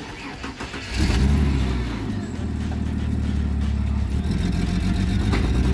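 Ford Falcon car engine starting about a second in, then settling into a steady run.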